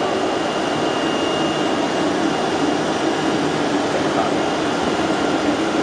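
AOKE CNC digital flatbed cutting machine running while it cuts a car floor mat sheet: a steady machine noise with the air rush of its vacuum hold-down table, and a faint high whine on top.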